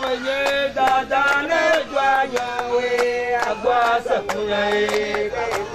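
A group of voices chanting a song together, with steady hand clapping about three times a second.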